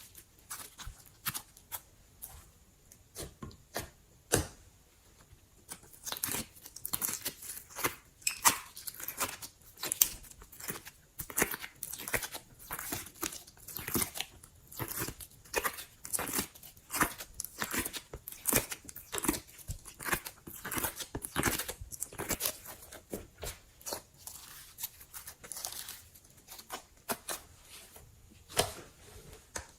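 Slime being worked by hand close to the microphone: irregular crackles and sticky pops, sparse at first and coming thick and fast from about six seconds in.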